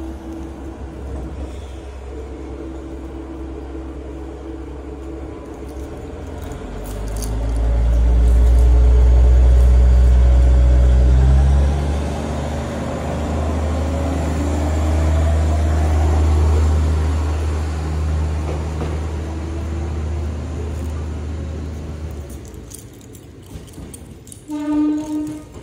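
Diesel railcar engine idling. About seven seconds in it throttles up into a loud, deep rumble as the train pulls away, with a rising pitch, and it fades after about twenty-two seconds. A brief pitched sound comes near the end.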